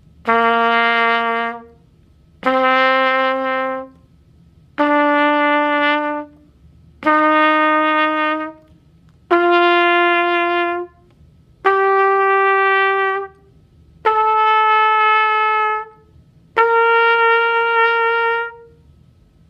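Trumpet playing an ascending C scale from low C to high C: eight held notes, each about two seconds long with a short break between, each a step higher than the last.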